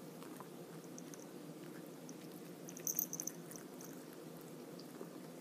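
A small metal spoon scraping and clinking against an open tuna can, with a quick cluster of small high clicks about three seconds in, over a low steady hum.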